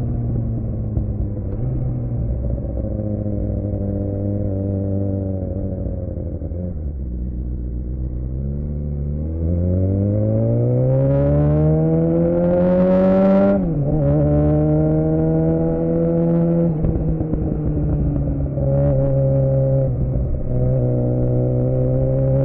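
Suzuki GSX-R600 inline-four engine through a Yoshimura R11 exhaust: revs sinking on a closed throttle, then climbing steadily under acceleration for about five seconds, dropping sharply at a gearchange about two thirds of the way in, and then holding a steady cruise.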